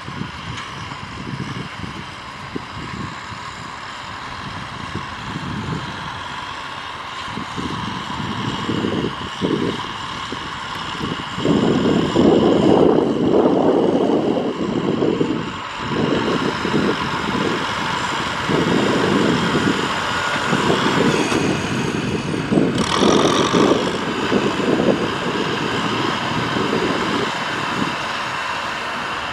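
Kubota tractor's diesel engine running under load as it pushes a blade of loose soil, growing louder about halfway through as it comes close.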